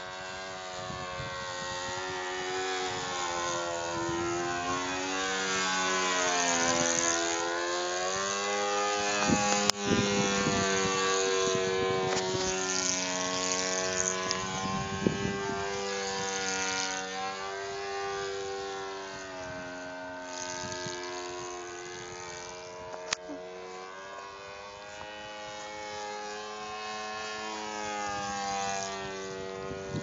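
Saito 82 four-stroke glow engine of a radio-controlled Super Decathlon model plane in flight, driving a 13x6 propeller. Its pitch rises and falls repeatedly as the plane manoeuvres overhead.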